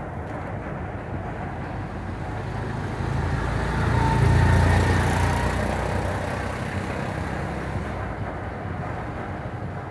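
A motor vehicle passing: a low engine and road noise that rises to a peak about halfway through, then slowly fades.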